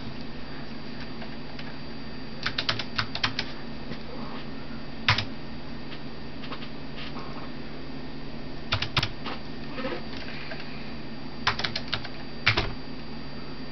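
Keystrokes on an Apple IIc's built-in keyboard as the BASIC commands LIST and RUN are typed, over a steady low hum. A quick run of key clicks comes a couple of seconds in, then a single louder keystroke. A few scattered presses come near the middle, and another quick run near the end finishes with a louder keystroke.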